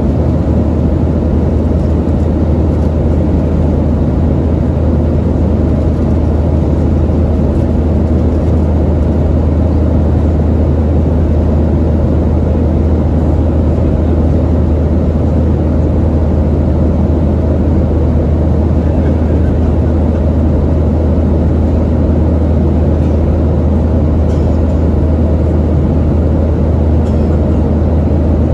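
Steady cabin noise of a Boeing 737-700 in the climb: a constant low drone from the CFM56-7B turbofans and the airflow, heard inside the passenger cabin.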